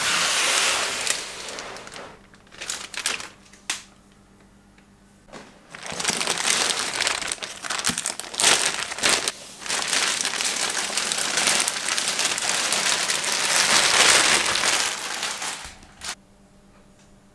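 Thin clear plastic bag crinkling as it is handled and pulled off a cardboard box: short bursts over the first few seconds, a brief pause, then steady crinkling for about ten seconds, stopping near the end after one last crackle.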